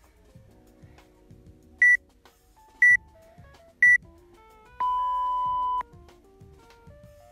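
Workout interval timer app counting down: three short high beeps a second apart, then one longer, lower beep lasting about a second that marks the start of the next round. Background music plays underneath.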